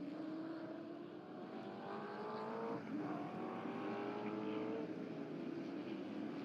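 A pack of V8 muscle race cars at full throttle. The engine note climbs, drops sharply about three seconds in, as with an upshift, and climbs again.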